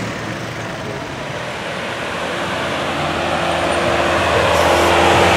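Lamborghini Aventador LP700-4 Roadster's V12 engine running steadily at low revs, growing louder over the second half as the car rolls past close by.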